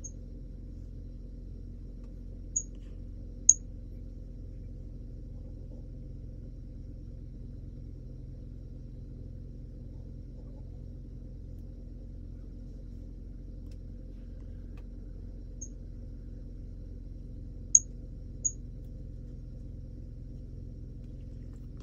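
Steady low hum of background noise, broken by five brief, sharp, high clicks: two a few seconds in and three more later on. The clicks are the loudest sounds.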